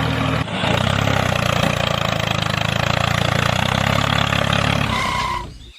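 Small engine of a DIY mini tractor running steadily, dipping briefly about half a second in, then fading out near the end.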